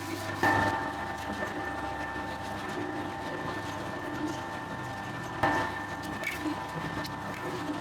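Bakery dough mixer running with a steady mechanical hum, with two sharp knocks about half a second in and about five and a half seconds in.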